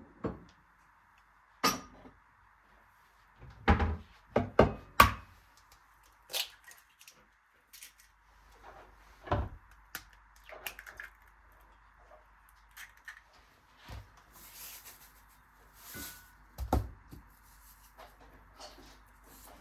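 Scattered knocks and light clunks of household items being handled and set down, over a faint steady hum.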